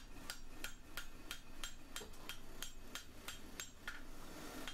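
Hand hammer striking a red-hot steel bar held in a U-shaped block on an anvil, with light, even blows about three a second, drawing the bar's edges out thinner.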